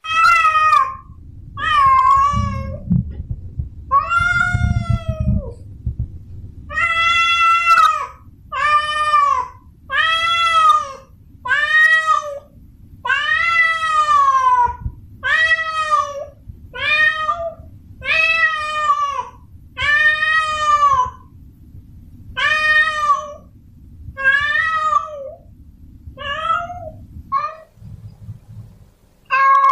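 Male cat in heat yowling a mating call to a female: a long run of drawn-out meows, one every second or two, each rising and then falling in pitch.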